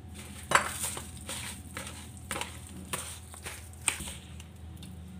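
A hand squeezing and mixing soft banana pieces with sugar in a plastic bowl: irregular soft squishes and short knocks and scrapes against the plastic, about six in all, over a steady low hum.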